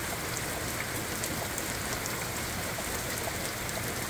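Heavy rain falling steadily: an even hiss with scattered faint ticks of drops striking surfaces.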